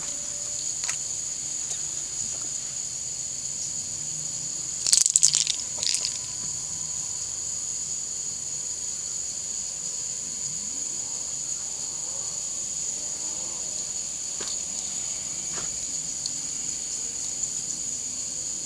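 A chorus of crickets chirring steadily, with a brief loud clattering rattle about five seconds in.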